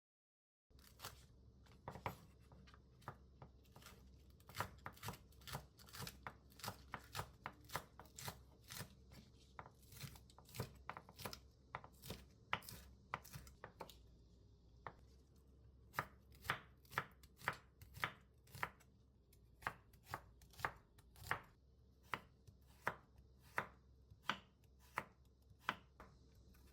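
Kitchen knife chopping ingredients on a cutting board in a steady rhythm of about two to three cuts a second, with a short pause about halfway.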